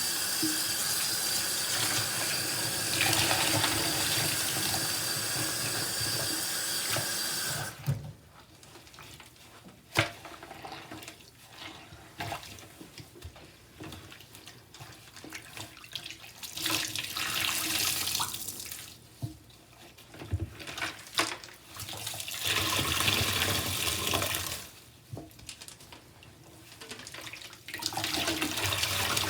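Tap water running steadily over sponges, cutting off suddenly about a quarter of the way through. After that come quiet squishing and a few sharp clicks, broken three times by a second or two of water gushing out as soaked sponges are squeezed and rinsed.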